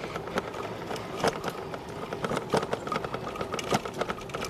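Bicycle rattling as it is ridden: irregular clicks and knocks from the bike and its mounted gear, over a steady background hum.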